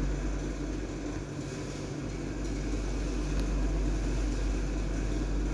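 Suzuki New Carry pickup engine idling steadily, a low even hum.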